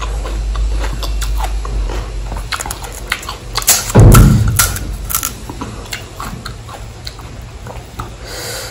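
Close-up crunching and chewing of pani puri: crisp hollow puri shells cracking between the teeth in a run of sharp crackles, with one loud heavy crunch about four seconds in.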